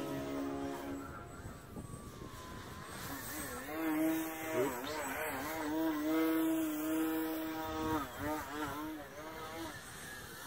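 Electric motor and propeller of a QQ Extra 300 radio-control aerobatic plane whining in flight. The pitch wavers, dips and rises with throttle changes during manoeuvres and holds steady for a moment in the middle.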